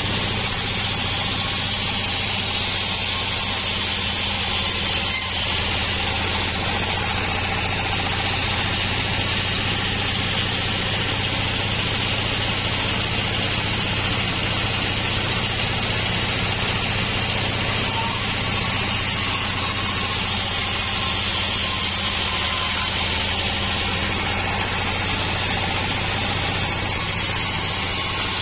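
Homemade band sawmill running steadily as it saws a wadang log, a low machine hum under the even hiss of the blade.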